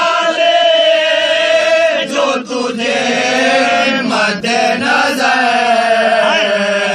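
A group of men chanting a marsiya together in unison, in long held notes, with short breaks about two and four seconds in.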